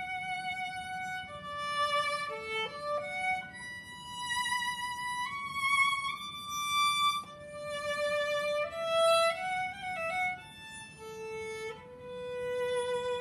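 Solo violin played with the bow: a slow melody of held notes, some sliding into the next, ending on a long held note.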